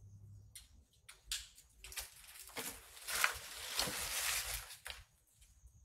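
Footsteps scuffing on a gritty, debris-strewn concrete floor: a few scattered light steps, then a longer stretch of shuffling from about two and a half seconds in.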